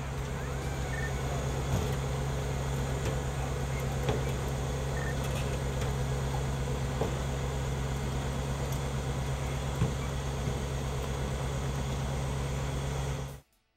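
Swamp buggy's engine idling: a steady low drone with a few faint knocks.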